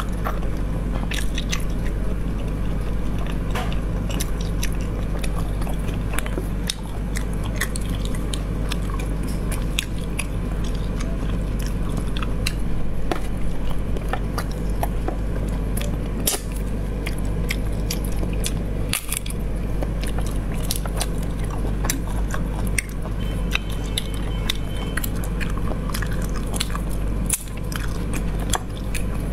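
Close-up eating of braised sea snails: wet chewing and sucking of the snail meat, with many sharp clicks as the shells are handled and pried, over a steady low hum.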